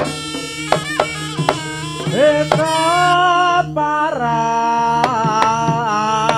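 Javanese jaranan accompaniment music: a high, wavering melody line held in long notes over sharp drum strokes and a steady low ringing tone.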